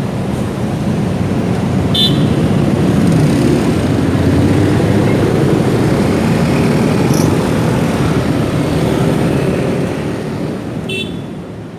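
Motorcycle engine running while riding through city traffic, with road noise and a few brief high horn toots; the sound fades out near the end.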